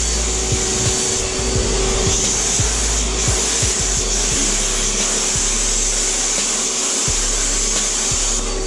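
Titan Capspray HVLP turbine sprayer running steadily: a steady turbine hum under a loud rush of air from the spray gun as it sprays coating onto a bathtub.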